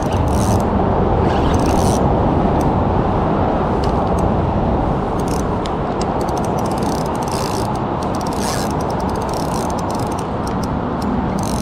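Spinning reel being cranked while a hooked fish is played: irregular quick mechanical clicks and ratcheting over a steady rushing noise.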